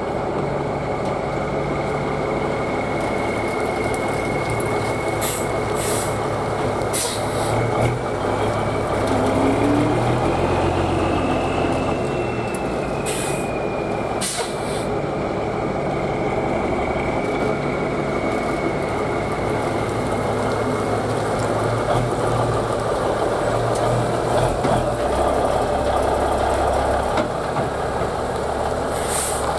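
Peterbilt 359 dump truck's diesel engine running as the truck is driven over the curb, its note rising and falling with the throttle. Several short hisses of air from its air brakes break in, a cluster in the first half and one more near the end.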